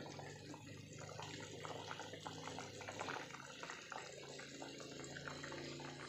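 Thick coconut-milk fish curry simmering in a pot on a gas stove, bubbling with soft, irregular small pops over a steady low hum.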